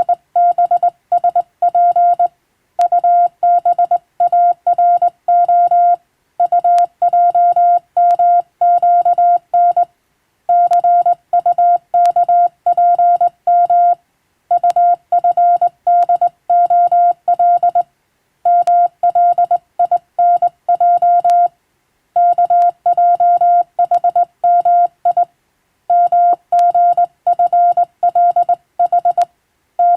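Morse code sent as a single steady beep tone, keyed on and off in quick dots and dashes. The characters come in groups, with a short pause between groups about every three to four seconds.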